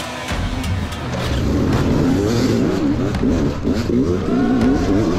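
Several hard enduro dirt bike engines revving together on the start line, their pitch rising and falling over and over and growing louder after about a second and a half.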